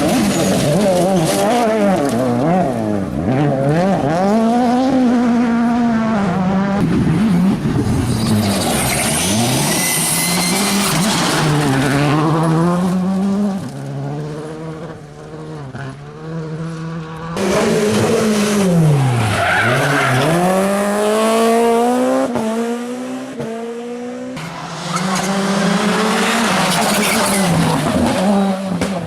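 Rally car engines revving hard, their pitch repeatedly climbing and dropping through gear changes and lifts off the throttle, with tyre squeal as the cars slide through the stage. The sound drops away twice and then comes back loud.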